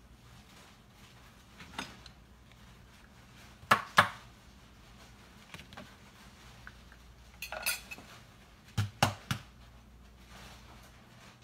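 Dishes and utensils clinking and knocking as they are handled, in scattered sharp knocks: a pair about four seconds in and a quick cluster of three near the end, over a faint steady low hum.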